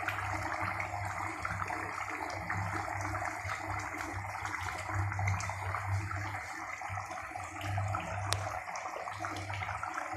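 A pot of fish and green pumpkin curry bubbling as it cooks on the stove, a steady crackly simmer over a low wavering hum.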